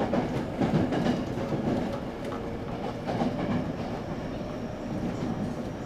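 Sanyo Electric Railway electric train running at speed, heard from inside the passenger car: steady wheel-and-rail rumble with scattered clacks over rail joints and a faint motor hum.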